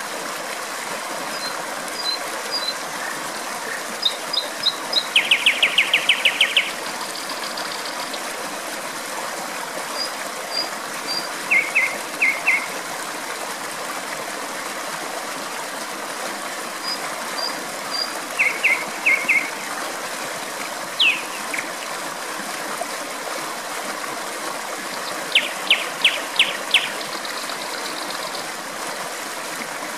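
Nightingale singing in separate phrases, fast series of repeated notes and short high whistles with pauses between, over the steady rush of flowing water.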